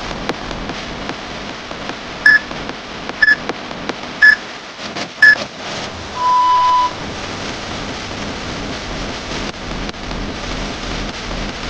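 Electronic countdown beeps of a workout interval timer: four short high beeps a second apart, then one longer, lower beep marking the start or end of an exercise interval. Beneath it runs a steady rain-like hiss.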